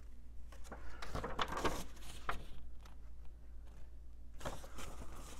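A fold-out paper CD insert being unfolded and handled: rustling with a few light clicks and taps, in two bouts, about a second in and again near the end.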